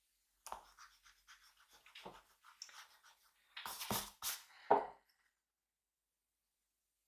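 A drawing tool scratching across paper in a quick run of short strokes, the heaviest few near the end, stopping about five seconds in.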